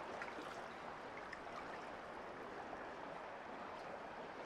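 Faint water lapping against a dock and boat hulls: a steady hiss with a few small scattered ticks.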